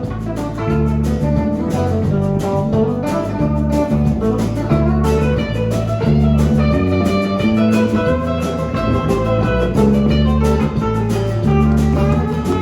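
A country band plays an instrumental break: a guitar takes the lead over a steady bass line and drums, with bending notes from about halfway in.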